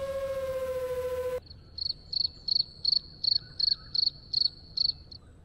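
A steady high whine, typical of an FPV drone's motors, cuts off abruptly about a second in. An insect then chirps about nine short, high-pitched pulses at roughly two to three a second.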